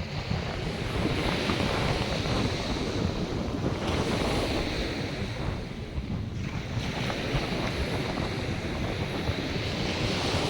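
North Sea surf breaking and washing up the beach, swelling and ebbing with each wave, with wind buffeting the microphone.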